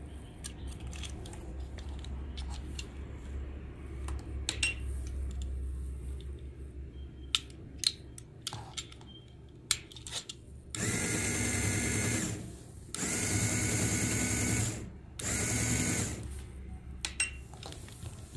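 A small Lego electric motor, fed about 9 volts from a bench power supply, whirs in three short runs of one to two seconds each. Before it, the plastic battery box and alligator clips click as they are handled.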